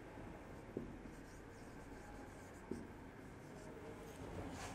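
Faint scratching of a marker on a whiteboard as a word is written by hand, with a couple of small taps of the tip and a slightly louder stroke near the end.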